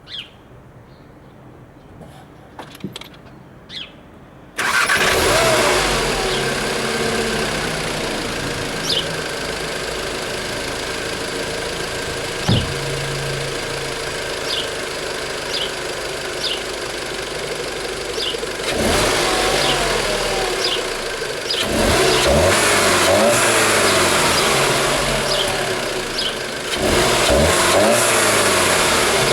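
SEAT Leon Cupra 290's 2.0 turbocharged inline-four with stock exhaust, started after a few faint clicks. It catches suddenly about four seconds in with a flare and settles into a steady idle. The throttle is then blipped, briefly first and then in longer revs near the end.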